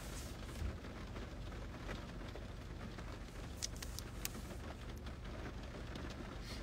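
Low, steady rumble inside a car's cabin, with a couple of faint clicks past the middle.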